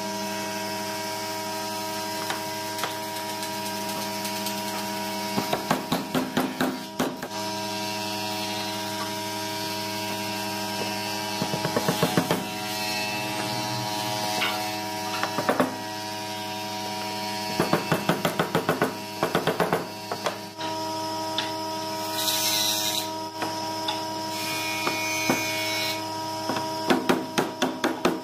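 Pine mortise-and-tenon joints being knocked home with a wooden mallet: bursts of quick wood-on-wood knocks, several a second, coming in about five spells. A steady electrical hum runs underneath.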